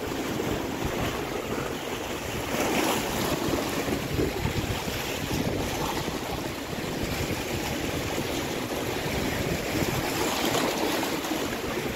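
Sea waves washing in over and around shore rocks, a steady surging noise that swells and eases, with wind buffeting the microphone.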